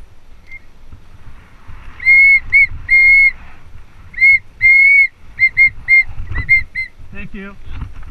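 Mountain bike brakes squealing in repeated spurts as the rider brakes on a descent: one steady, high, ringing pitch, first in two longer squeals and then in a quick run of short ones, over rumbling trail and wind noise.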